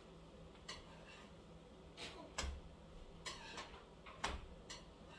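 Metal spatula clicking and knocking against a stovetop griddle as pancakes are turned and lifted: about half a dozen sharp clicks, two of them louder with a dull thump, over a faint steady hum.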